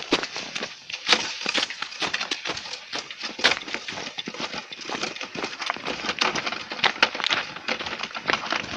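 Quick, uneven crunching steps in snow, several a second, as the sled is pulled along.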